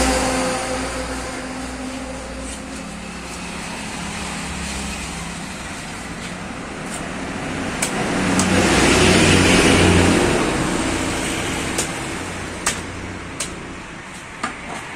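Road traffic going by: a motor vehicle's noise swells up past its loudest about two-thirds of the way through, then fades. A few sharp clicks come near the end.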